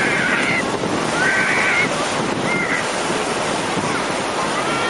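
Sea waves washing onto the shore, with strong wind buffeting the microphone: a steady, loud wash of noise.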